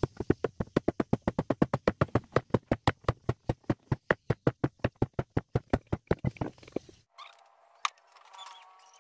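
Rapid, steady hammering on wooden boat planks, about six or seven blows a second, cutting off abruptly about seven seconds in.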